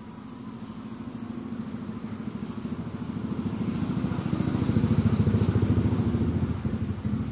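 A motorcycle engine running with a fast, even pulse. It grows louder over about five seconds, then drops off somewhat near the end.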